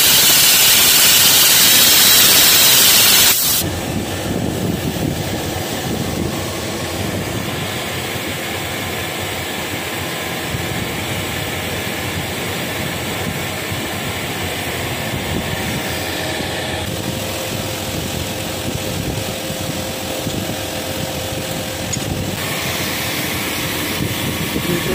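Thermal spray-welding gun hissing loudly as it sprays metal onto a worn air breaker hammer piston to build it back up, cutting off suddenly about three seconds in. After that a machine runs steadily with a lower, even hum.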